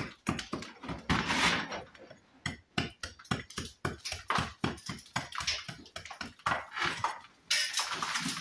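Small pick-ended hammer chipping into the face of a damaged brick to recess it for a cut brick slip: rapid, irregular sharp strikes of steel on brick, with gritty scraping about a second in and again near the end.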